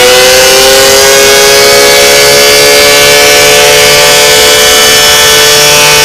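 Emergency alarm siren sounding two pitches at once, very loud. It finishes winding up in the first second, then holds a steady chord.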